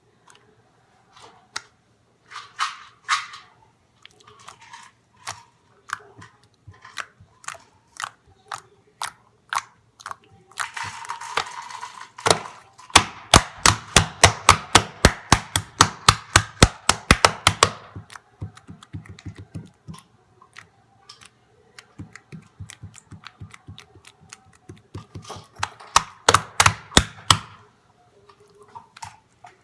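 Homemade slime being squished and pressed by hand, giving sharp little pops and clicks. There are fast runs of pops about halfway through and again near the end.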